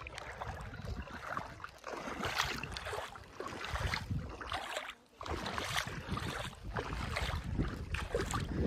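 Water sloshing and splashing in a shallow lagoon, mixed with wind gusting on the microphone.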